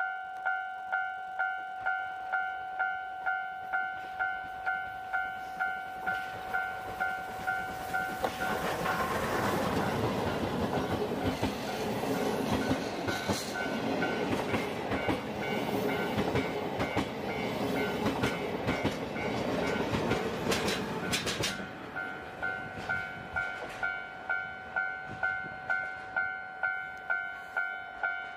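Japanese level-crossing warning bell dinging steadily, about two dings a second. About eight seconds in, a train hauled by a C11 steam locomotive passes the crossing; its rumble and the clatter of its wheels over the rail joints drown the bell for some thirteen seconds, then the bell rings on alone.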